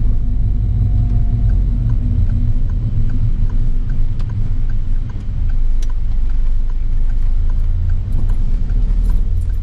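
Car cabin noise while driving: a steady low rumble of engine and tyres. A faint, regular ticking, about two a second, runs through most of it.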